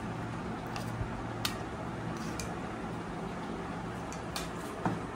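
Room tone with a steady low hum, broken by a few faint clicks of a spoon against stainless steel plates as food is served onto them.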